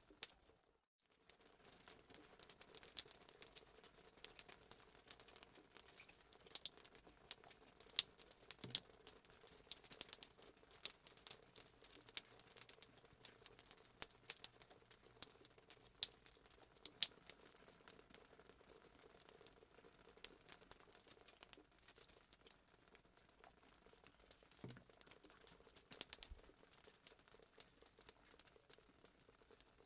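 Fireplace sound effect: a wood fire crackling, with a dense run of small sharp pops and snaps over a faint hiss. It cuts out briefly just under a second in.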